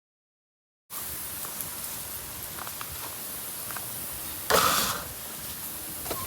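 Outdoor farmyard ambience: a steady background hiss with faint ticks and clicks. It starts abruptly about a second in, and there is one short, loud sound about four and a half seconds in.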